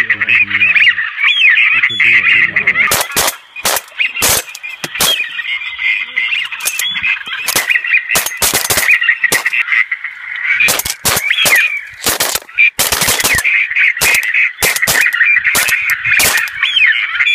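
Shotgun shots fired at a flock of flying ducks, many of them in quick succession and scattered throughout, over a continuous chorus of high-pitched duck calls.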